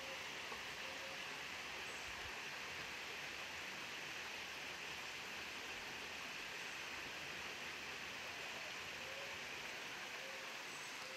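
Steady rush of flowing water, an even hiss with no change.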